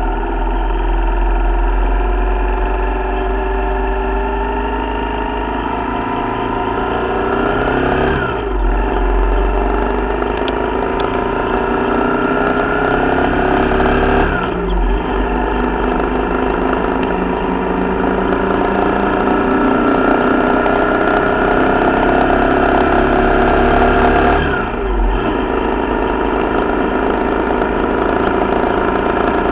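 Corven Triax 150 single-cylinder four-stroke motorcycle engine pulling along the road under way, its pitch climbing slowly and then dropping sharply at each upshift, three times.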